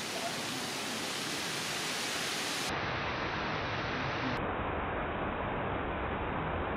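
Steady rushing noise with no distinct events, turning duller about three seconds in and again about a second and a half later.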